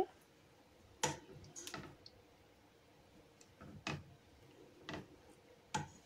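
A spatula stirring thick besan sheera in a nonstick pan, giving a handful of short, irregular clicks and taps against the pan.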